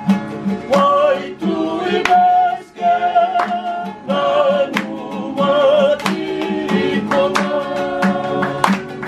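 A small group of women and men singing a Fijian farewell song in harmony, with held notes, over a steady strummed guitar.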